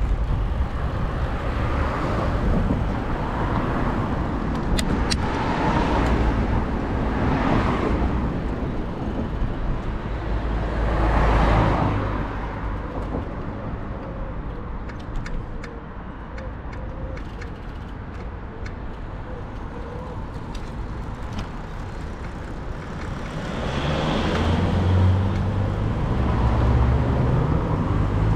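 Road traffic on a main road: cars passing one after another, each swelling and fading. Near the end an engine pulls away with a rising note.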